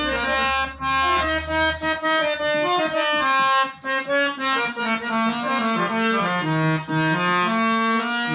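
Harmonium playing a melodic instrumental interlude of the bhajan, held notes stepping up and down in pitch, with a low held bass note under the first two seconds.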